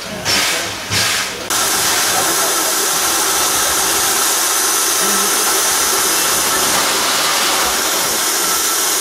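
Steam tram locomotive letting off steam: two more rhythmic hissing puffs, about two a second, then about a second and a half in a steady, loud hiss of escaping steam starts and holds.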